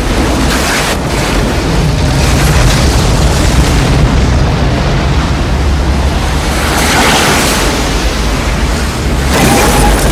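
Film sound effects of a tornado: a loud, continuous roar of wind with a heavy low rumble and churning debris. It swells about seven seconds in and again near the end.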